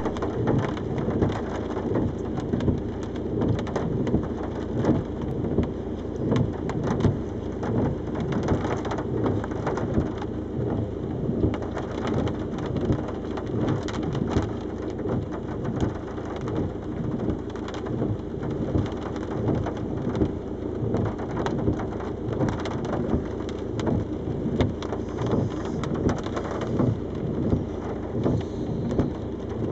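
Storm noise from a 55 mph gale: wind buffeting the microphone in gusts, with a constant patter of driving drops.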